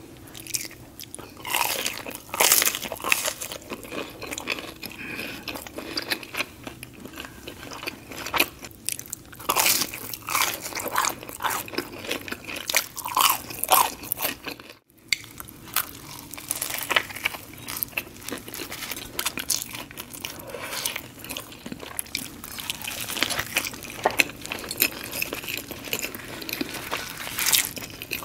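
Close-miked crunchy bites and chewing of fast-food breakfast items, among them a croissant sandwich, with sharp crackling crunches between softer chewing. A brief gap about halfway through.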